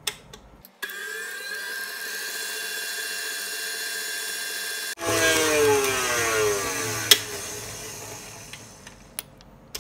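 Electric stand mixer running at medium speed, its flat beater creaming butter, sugar, egg and coffee in a steel bowl: a steady motor whine that starts about a second in. About halfway through it turns louder and the whine drops in pitch, then a sharp click, and it fades toward the end.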